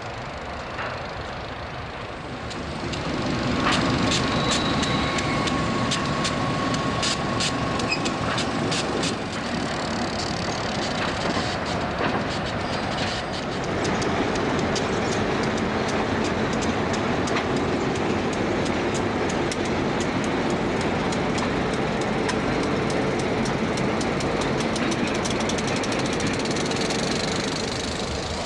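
Diesel switcher locomotives working a loaded fly ash train, a few seconds in with a steady high squeal and a run of sharp clanks from wheels and couplers. From about the middle on, the sound settles into a steady diesel engine drone.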